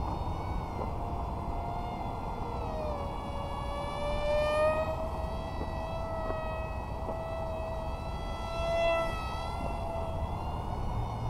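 Electric motor and two-blade Gemfan Hurricane 3018 propeller of an XK A180 F-22 model plane whining in flight, the pitch sliding with the throttle: it drops about three seconds in, then holds fairly steady with a brief dip near the end.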